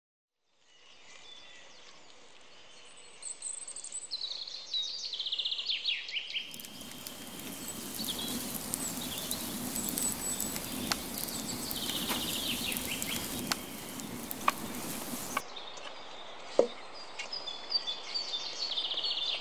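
Songbirds singing in woodland. About six seconds in, a wood fire starts crackling and hissing with sharp pops for about nine seconds, after which the birdsong continues with a single sharp knock.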